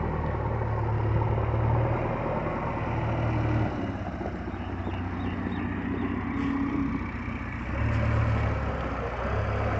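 JCB backhoe loader's diesel engine running as the machine works, its revs rising and easing: louder for the first few seconds, quieter in the middle, then picking up again near the end.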